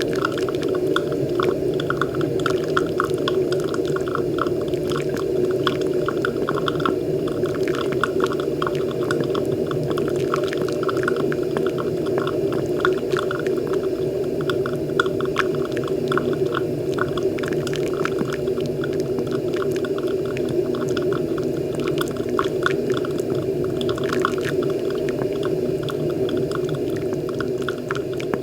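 Moccamaster KBGV Select drip coffee maker brewing: a steady bubbling and gurgling as hot water is pushed up and sprays onto the coffee grounds, with a dense patter of small crackles and drips.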